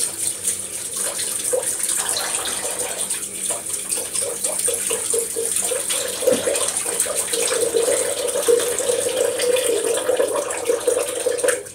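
Bathroom tap running steadily into a washbasin with the plug in, while hands are washed with a bar of soap under the stream.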